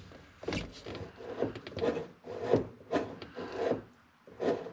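Accelerator pedal and throttle cable of a 1971 Chevy Nova creaking and rubbing as the pedal is pushed toward the floor: a string of short scraping creaks, about two a second.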